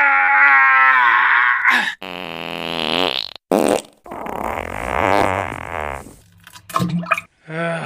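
Fart sound effects while straining on the toilet: several long, wavering farts in a row, then short sputters about two-thirds of the way through.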